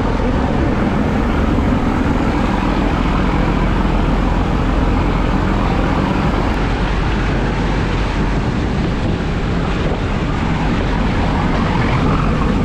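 Nilgiri Mountain Railway toy train running along the line, heard as a steady, loud rumble of the moving carriage.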